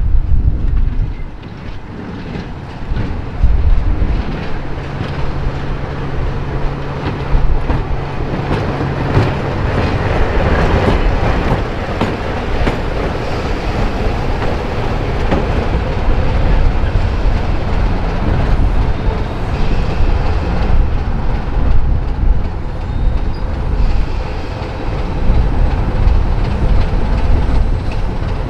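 BR Class 25 diesel locomotive running slowly past at close range, its Sulzer six-cylinder diesel engine holding a steady note, with wheels clicking over the rail joints. It is loudest as it passes close about a third of the way through.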